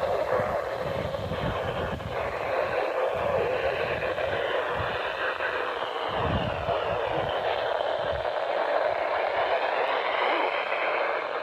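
NOAA Weather Radio receiver hissing with static on a weak signal, with the broadcast voice barely coming through the noise. Low rumbling under the static stops about eight seconds in.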